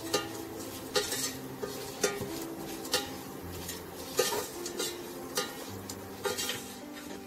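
Metal spoon scraping and knocking against a stainless-steel pan, about once a second, while stirring dried red chillies frying in oil, over a light sizzle.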